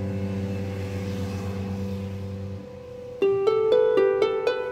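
Background music: a held, soft chord fades away, then about three seconds in plucked, harp-like notes begin in a steady pattern of about four a second.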